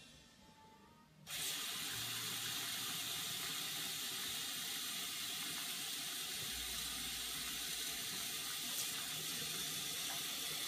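Steady rush of running water that starts abruptly about a second in and holds evenly.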